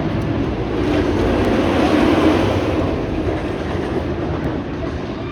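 Wildcat's Revenge, a Rocky Mountain Construction hybrid roller coaster, with its train running empty through the layout on a test cycle. The steady rumble of wheels on the steel track swells about two seconds in and then fades.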